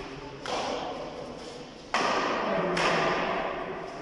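Badminton rackets hitting a shuttlecock during a fast rally: three sharp smacks, about half a second, two seconds and just under three seconds in, each ringing briefly in the hall. The one two seconds in is the loudest.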